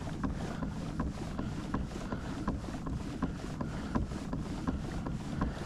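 Kayak moving along at trolling speed: a steady low rumble with wind on the microphone, and light regular clicking about three times a second.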